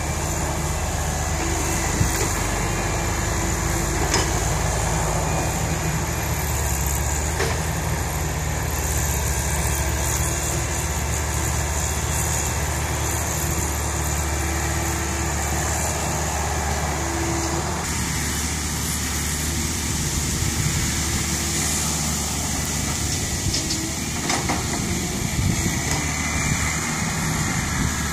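Diesel engines running steadily as a Komatsu hydraulic excavator digs and swings soil over to a six-wheel dump truck, with a few short metallic knocks from the working machinery. The engine note eases a little about two-thirds of the way through.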